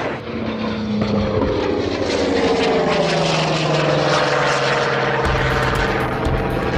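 Propeller aircraft engine passing close by, its pitch falling steadily as it goes past during an air strike. About five seconds in, a deep rumble of exploding bombs comes in under it.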